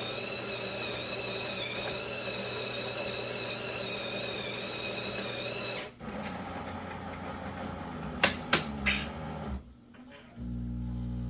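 Terra Kaffe TK-02 super-automatic espresso machine working on a single espresso: a steady motor whine for about six seconds that stops abruptly, then a lower mechanical sound with three sharp clicks, and near the end a steady low buzz starts.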